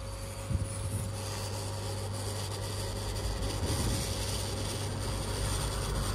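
Hot air rework station blowing a steady rush of air from its nozzle, heating the legs of an EEPROM chip on an ECU circuit board to desolder it. A couple of light knocks near the start.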